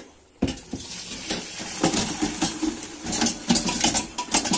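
Boiled green pine cones and their cooking liquid being poured from a pot into a strainer, starting suddenly about half a second in: splashing liquid with the clatter of cones and metal cookware.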